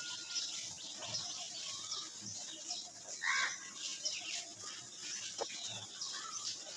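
Dry red dirt crumbled and squeezed by hand in a metal bowl: continuous gritty crunching and the trickle of powdery soil falling through the fingers. A bird calls once about three seconds in.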